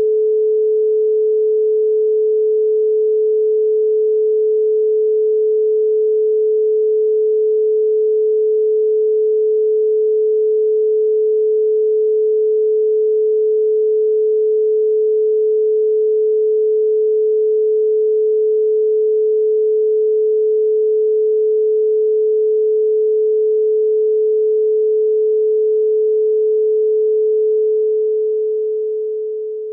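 A steady pure sine tone at 432 Hz, one unchanging pitch with no overtones, fading out near the end.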